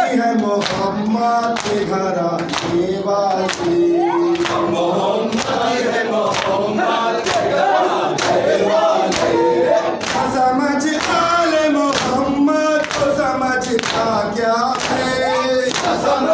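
A group of men chanting a Shia mourning noha together over a microphone, with a steady beat of sharp hand slaps from matam (ritual chest-beating) by the crowd.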